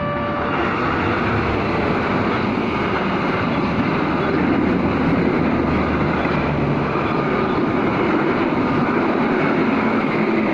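Train passing over the level crossing at close range: a steady, loud rumble and rattle of wheels on the rails, with the crossing's warning signal tones faintly beneath.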